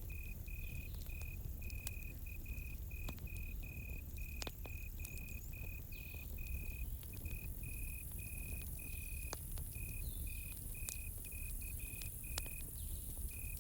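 A cricket chirping in short, evenly spaced pulses, about two to three a second, over a campfire crackling with scattered sharp pops and a low steady rumble.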